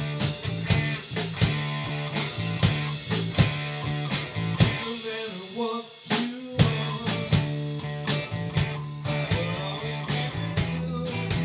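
Live rock band playing the opening bars of a song: two electric guitars, electric bass and a drum kit with a steady beat, briefly dropping out about six seconds in before crashing back in.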